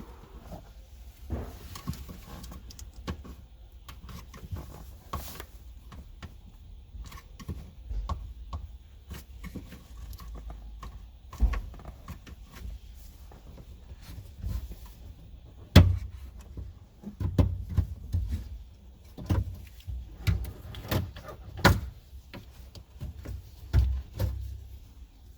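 Irregular clicks, knocks and dull thumps of plastic and rubber trim as the car's upper window seal is pried and pulled off the rear quarter window frame, with a louder knock a little past the middle.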